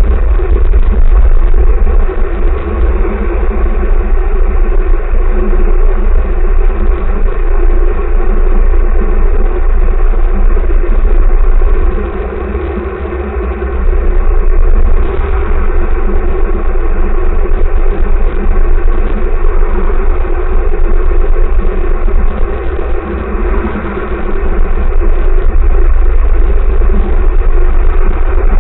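Car driving in town traffic: a steady, loud low rumble of engine and road noise, easing off briefly twice, about 12 and 23 seconds in.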